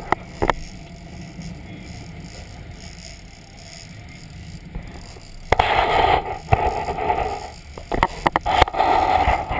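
Churning water at a sportfishing boat's stern, rushing and crackling, with a couple of sharp clicks near the start; it turns much louder about five and a half seconds in, with irregular crackles.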